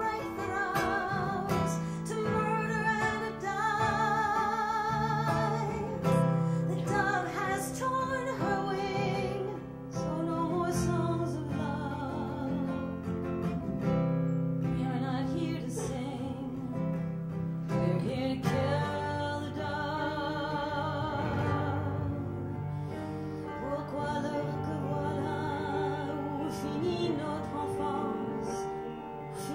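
A woman singing a slow ballad with a wavering vibrato over steady instrumental accompaniment.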